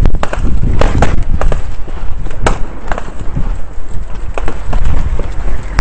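Gunfire: a string of sharp cracks at uneven intervals over a heavy low rumble of wind and movement on a body-worn camera whose wearer is running.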